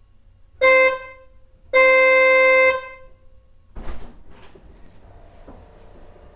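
2018 Tesla Model 3 horn sounded twice, a short toot and then a steady blast of about a second, on one pitch; the owner finds the horn sounding weak. A thump follows a second or so later.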